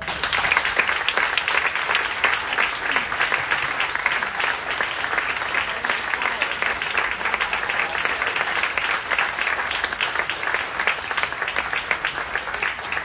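Audience applauding, many people clapping at once; it starts suddenly.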